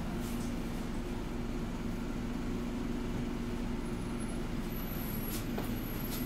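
Inside the upper deck of a Scania N230UD double-decker bus: the five-cylinder diesel engine and drivetrain make a steady drone, with road noise and a couple of light rattles near the end.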